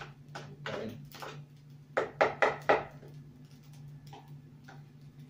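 A spoon scraping and tapping against a plastic food container of salad, with four sharp taps in quick succession about two seconds in. A steady low hum runs underneath.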